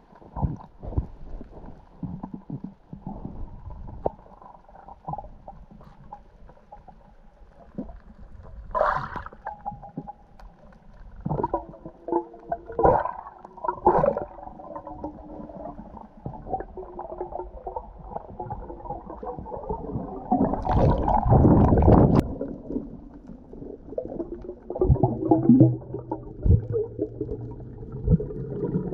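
Muffled underwater sound picked up through a camera housing: gurgling and scattered clicks, with a louder burst of rushing noise about 21 seconds in.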